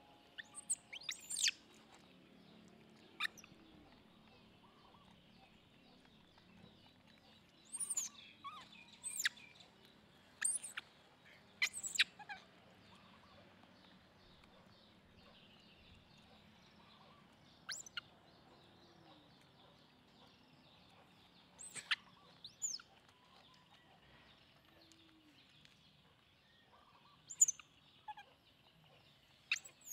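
Birds chirping: about a dozen short, high-pitched chirps scattered at irregular intervals, some in quick clusters, over a faint outdoor background.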